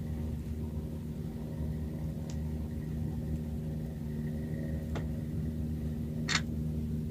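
Small single-cylinder inboard engine of a fishing boat running steadily at idle, a low even hum. Three brief clicks over it, the sharpest near the end.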